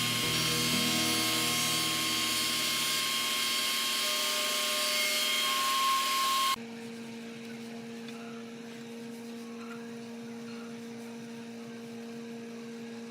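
A power tool running with a steady whine, which cuts off suddenly about halfway through, leaving a quieter steady electrical hum.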